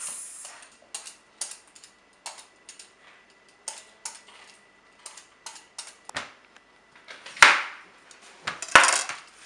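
Hand vegetable peeler scraping the skin off a long melon (bottle gourd), quick short strokes about every half second, with two longer, louder scrapes near the end.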